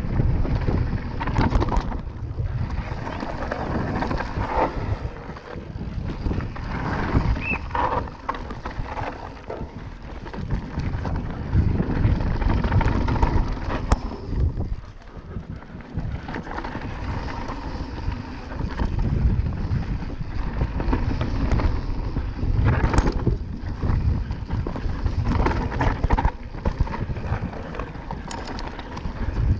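Mountain bike descending a dirt and gravel trail at speed: wind buffeting the microphone, the tyres rumbling over the ground and the bike rattling, with several sharp knocks from bumps.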